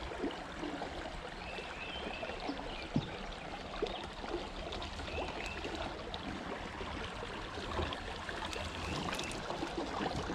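River water running steadily past, a light trickling flow, with a few small knocks now and then, the clearest about three seconds in.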